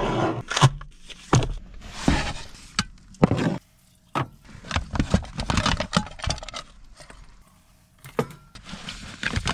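Cooking supplies handled on a countertop: a string of knocks, clinks and rustling as jars and a gas canister are picked up and set down.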